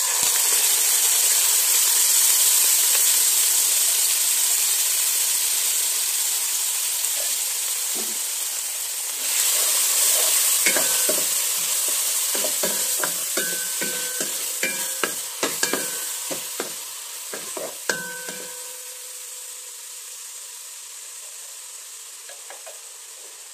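Ground spice paste sizzling in hot oil in a stainless steel pot, the sizzle slowly dying down. From about ten seconds in, a wooden spatula stirs the paste and knocks against the pot many times over several seconds, and a fainter sizzle goes on after.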